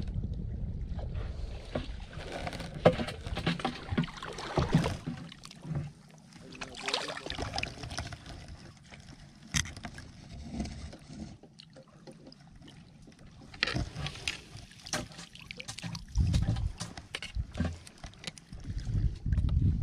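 Wading through shallow water over rocks while a scoop net works the water: irregular splashing and sloshing, with scattered sharp clicks and knocks.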